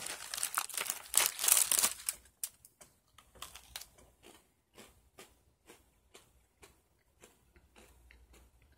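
Plastic cookie-package wrapper crinkling loudly for about two seconds, then faint scattered crunchy clicks of a cookie being chewed.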